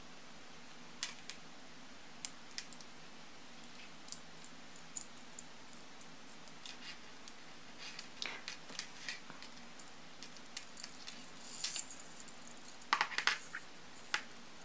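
Light metallic clicks and jingles of a stainless steel chain necklace and its lobster clasp being handled, scattered irregularly over a faint steady hiss, with a louder flurry of clicks near the end.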